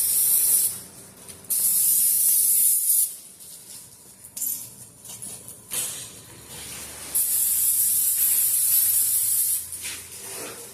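Bursts of hissing from a pressurized jet, typical of work on a truck's brakes, starting and stopping several times; the longest runs about two and a half seconds.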